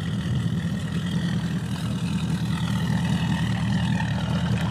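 Outboard motor idling: a steady low hum.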